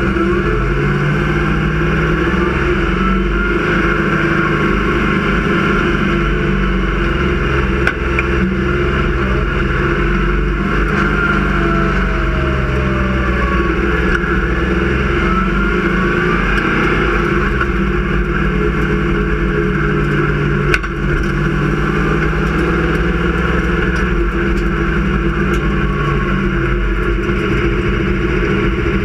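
A Sportsman stock car's engine, heard from inside its stripped cockpit, running at low speed with the throttle easing up and down in gentle swells. It gives two brief knocks, one about eight seconds in and one about twenty-one seconds in.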